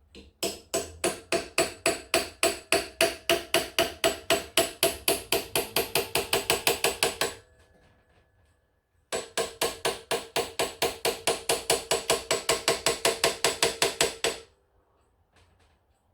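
Small hammer tapping rapidly on an old knife blade wedged into a joint of a slate clock case, about five ringing strikes a second. The taps come in two runs of several seconds with a short pause between.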